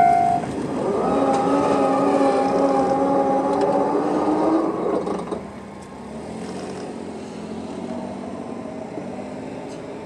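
A Japanese level-crossing alarm stops ringing just after the start. The Nippon Signal MWF-D electric crossing barrier machines then hum steadily for about four seconds as the arms rise, and cut off suddenly. A car then drives over the crossing.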